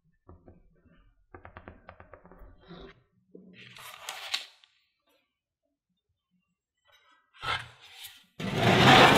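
Soft clicking and squishing of sweet potato and oat dough being pressed into a ring by hand, then a brief papery rustle as the ring is laid on baking parchment. Near the end a much louder sound cuts in.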